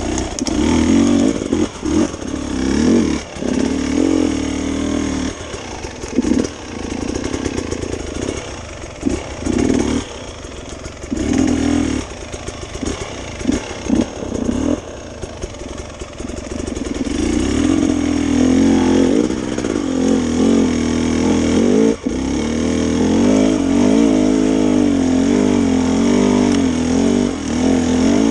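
Enduro dirt bike engine revving in short throttle bursts with brief drops off the gas. From about 17 seconds in it is held on the throttle more steadily, its pitch rising and falling.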